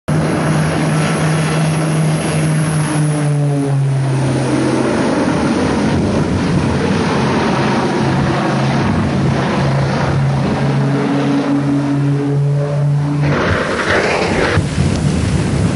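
Twin-engine propeller aircraft flying low overhead, its propellers making a loud, steady low drone that shifts pitch a few times and cuts off about thirteen seconds in. A brief, loud rush of noise follows.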